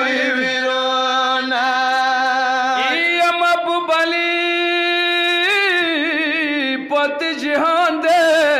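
Long held sung notes of a Pashto noha, a Muharram lament. The pitch steps up about three seconds in and wavers from about halfway on.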